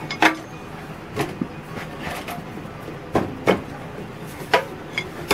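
Irregular metal clinks and knocks, about six in all, from hand tools and loose parts being handled at a garden tractor's flywheel and drive-shaft coupling.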